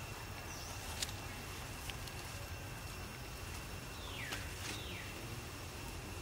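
Outdoor ambience with a steady faint high tone and a low rumble. A sharp click comes about a second in. Two short animal calls fall steeply in pitch around four seconds in.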